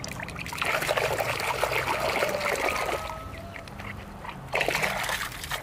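Water sloshing and splashing in a plastic bucket as a hand scrubs a small tool under the surface. It comes in two bouts: a longer one through the first three seconds and a shorter one about four and a half seconds in.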